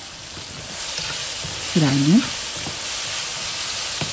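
Tomatoes, cilantro and green chili frying in oil in a non-stick pan, sizzling as a spatula stirs them. The sizzle grows louder about a second in, then holds steady.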